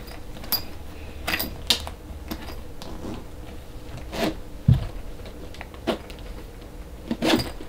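A camera bag being unzipped and handled: scattered short zipping and clicking sounds, with a soft thump a little before the middle.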